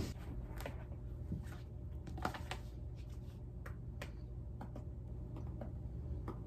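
Scattered light clicks and taps of a tablet in a folio case being picked up and handled, over a steady low room hum.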